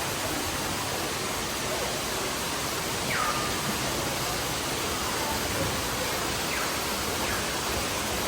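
Steady rushing water, like a waterfall or falling rain. A few faint, short downward-sliding chirps come through about three seconds in and again near the end.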